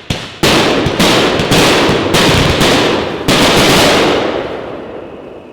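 Elite Fireworks Stealthy Bot 26-shot cake firing: a quick run of launch shots, about two a second, running together into a continuous rush of noise that fades away over the last second or so.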